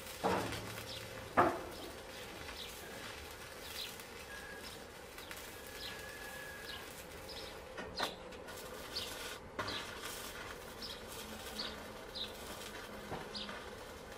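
Electric arc welding overhead on a steel roof frame: a steady crackling hiss from the arc, with two sharp knocks near the start, the second the loudest. Small birds chirp again and again throughout.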